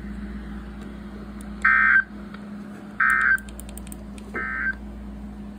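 Three short bursts of EAS/SAME digital data tones, the shrill two-tone warble of the End-of-Message code that closes an emergency alert. Each burst lasts about a third of a second, they come about a second and a half apart, and the third is quieter. Under them is a steady low hum and hiss from the radio.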